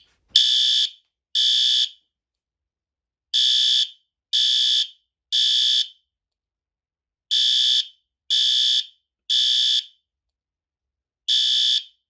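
System Sensor SpectrAlert Advance P2R fire alarm horn sounding loud, high-pitched blasts in the temporal-three evacuation pattern: three short blasts, a pause, then three more, repeating. The first group, just after the pull station is pulled, has only two blasts.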